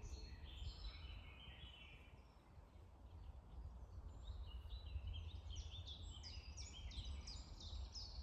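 Faint woodland birdsong: quick, high chirping notes from small songbirds, sparse at first and busier in the second half, over a low steady rumble.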